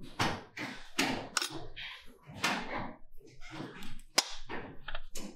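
Tools being handled on a work table: irregular knocks, clatter and thuds as metal tools and drill bits are picked up and set down.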